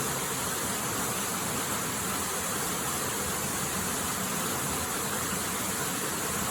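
Waterfall's steady, even rush of falling water.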